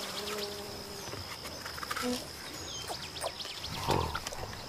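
Forest ambience: birds chirping in short, scattered calls over a steady high-pitched buzz, with a brief low sound about four seconds in.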